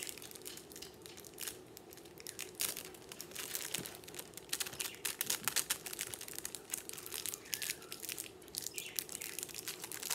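Small packet being worked open by hand, crinkling and rustling in quick, irregular crackles.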